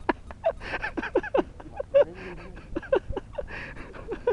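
Rapid run of short, high animal calls, each one dropping sharply in pitch, several a second.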